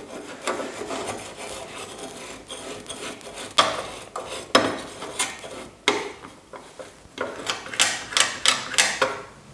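T12 soldering iron tip being jabbed and scrubbed in a brass-wool tip cleaner, a run of scratchy rasping strokes that become sharper and more frequent after about three and a half seconds. This is the tip being cleaned of its black oxide.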